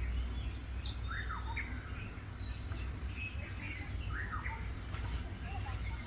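Small birds chirping in a tree: scattered short calls, several sliding down in pitch, with a quick high twittering about halfway through, over a low steady rumble.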